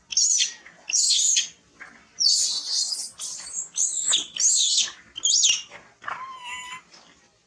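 Macaque giving a run of high-pitched squealing calls, about six in quick succession and each about half a second long, then a single lower call about six seconds in.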